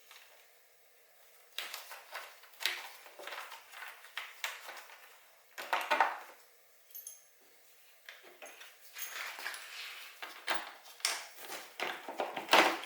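Hand tools and small metal fasteners clinking and clattering in irregular bursts during motorcycle disassembly, loudest about six seconds in and near the end.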